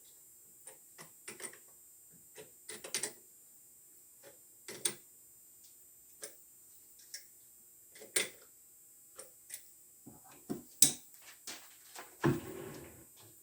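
Irregular light clicks and knocks of tools and metal parts being handled, with a short burst of noise about a second long near the end.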